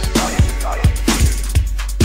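Instrumental stretch of a 1988 hip hop record: a steady drum beat of deep, falling kicks and crisp hi-hats.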